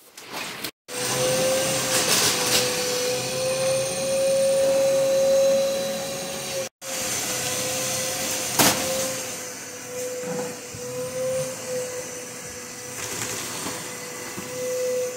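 A steady electric motor whine over a loud hiss, its pitch wavering slightly, with two very short breaks and a sharp click about two-thirds of the way through.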